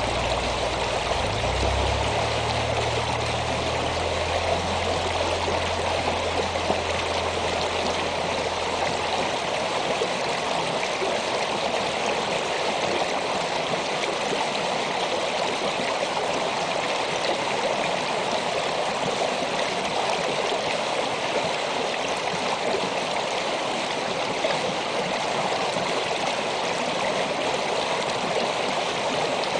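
Shallow winter stream running over and around rocks: a steady, unbroken rush and babble of flowing water.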